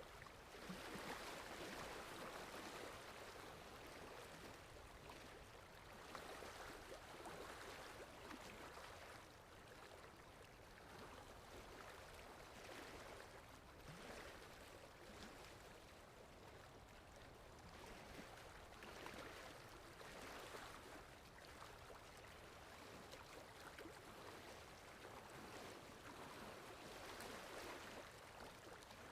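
Quiet sea waves washing ashore, each swell rising and falling away every six seconds or so.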